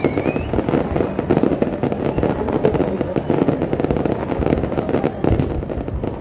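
Fireworks display: a dense, continuous run of rapid crackling pops from many bursting shells, with a few sharper reports about five seconds in.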